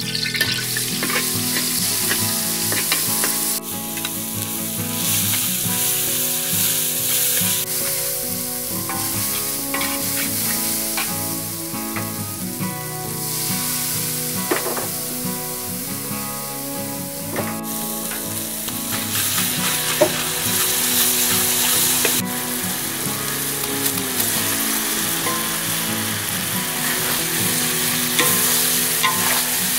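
Food sizzling and frying in a large steel wok, with a metal ladle stirring and scraping against the pan in short strokes now and then. The sizzle jumps in level abruptly a few times.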